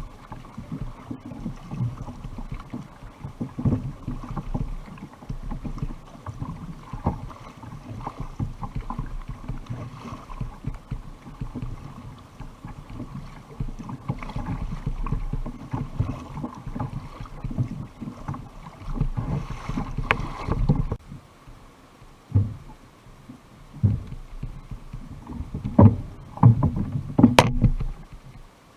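Water sloshing around a kayak with a low, uneven rumble of wind on the microphone, and a few sharp knocks in the last several seconds.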